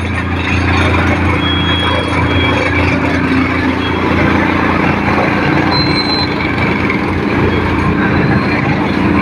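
A vehicle running steadily, a loud continuous rumble with a low hum and a few brief faint high squeals.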